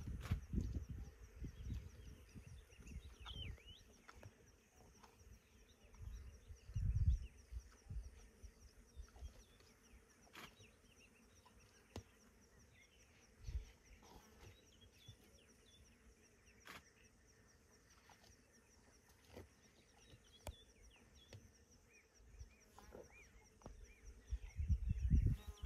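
Savanna ambience: a steady high insect drone with scattered short bird chirps. There are a few sharp clicks, and bursts of low rumble near the start, about seven seconds in and again near the end.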